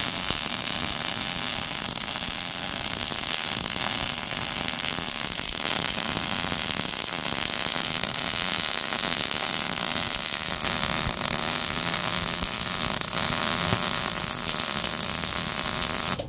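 MIG (wire-feed) welding arc running continuously as a bead is laid on steel tubing, then cutting off just before the end.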